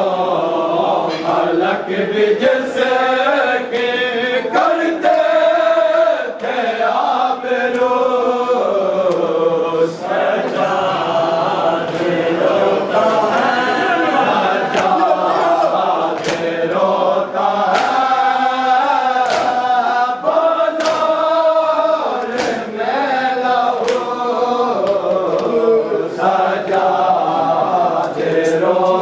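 A group of men chanting a noha together, with the sharp slaps of matam (hands striking chests) keeping time about every second and a quarter.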